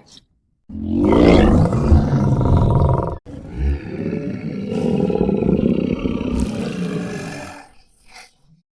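Designed Tyrannosaurus roar sound effects. A loud roar starts about a second in and cuts off abruptly. A second, longer and quieter roar follows and fades out near the end.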